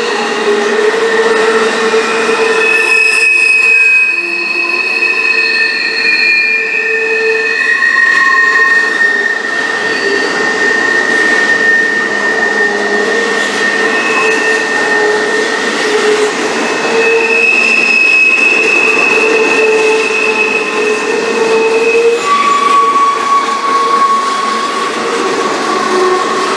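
Double-stack intermodal container train rolling past, its wheels squealing against the rails: several high, drifting tones that come and go over the steady rumble and rattle of the passing cars.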